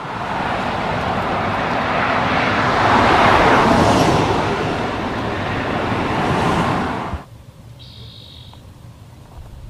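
Loud, even rushing noise that swells to its loudest about three seconds in and cuts off abruptly after about seven seconds, leaving a much quieter low hum.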